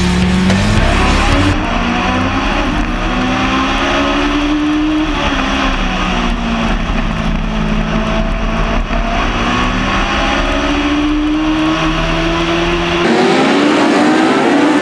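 Onboard sound of a US Legends race car's Yamaha motorcycle four-cylinder engine at racing speed, its pitch rising and falling as it revs on the straights and backs off into the turns. Rock music fades out under it in the first couple of seconds, and near the end the sound switches to Legends cars racing past, heard from the grandstand.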